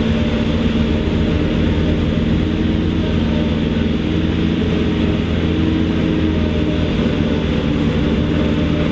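Mercedes-Benz MB Trac 800's four-cylinder diesel engine running steadily at constant revs while its hitched Taarup 101 forage harvester's hopper is tipping.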